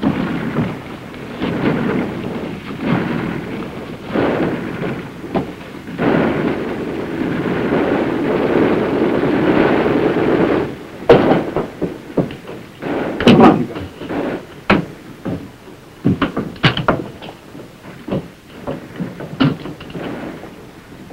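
A steady rumbling noise for about ten seconds that stops abruptly, then a run of sharp, irregular knocks and bangs, the loudest just after the rumble stops.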